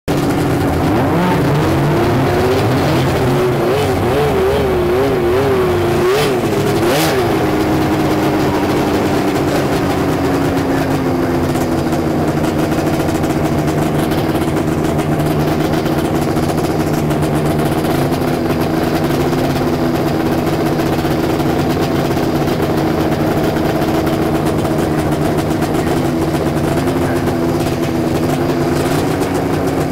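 Two-stroke snowmobile engines running in staging. The pitch wavers quickly up and down with throttle blips a few seconds in, then settles to a steady high idle.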